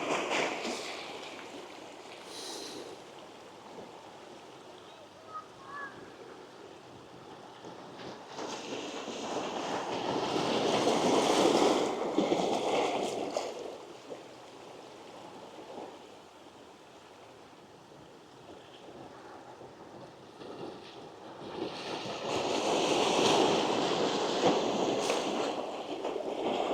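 Gentle sea waves breaking and washing up a sandy beach. The surf swells and fades in slow surges: one is fading at the start, another rises to a peak midway, and a third comes near the end.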